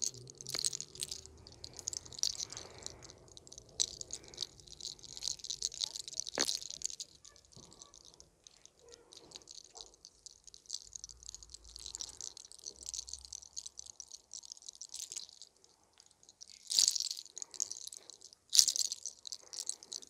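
Close-miked rustling and rubbing of hands working the skin and hair of a woman's neck and shoulders, with many small clicks. There is one sharp crack about six seconds in, the neck being cracked, and louder scrapes near the end.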